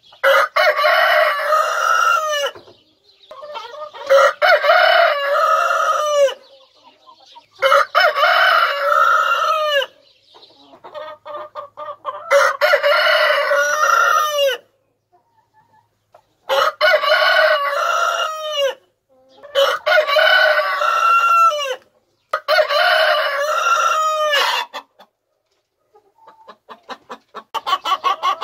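Rooster crowing seven times in a row, each crow about two and a half seconds long, with short gaps between. Near the end comes a fast run of short clucks.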